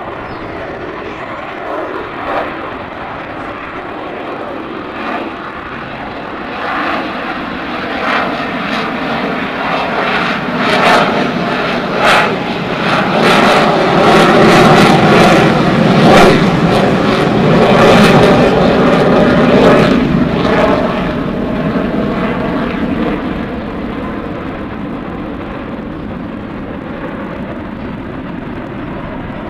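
Airshow airplane making a low pass: its engine noise builds, is loudest and crackling for several seconds about halfway through, then fades away.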